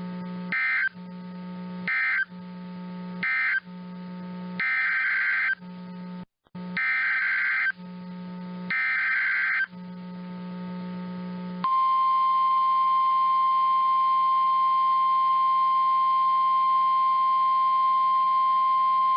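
Emergency Alert System signalling: three short bursts of SAME data tones, then three longer SAME header bursts, each a harsh warbling screech. After that comes the steady 1050 Hz NOAA Weather Radio warning alarm tone, beginning a little past the halfway point, which announces the next warning.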